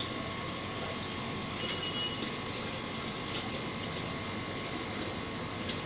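Steady hum and water noise of an aquarium's filter pump running, with a faint constant tone and a brief high beep-like tone about two seconds in.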